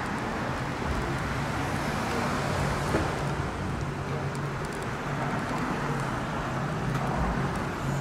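Steady road traffic and vehicle engine noise with a low hum, and a light click about three seconds in.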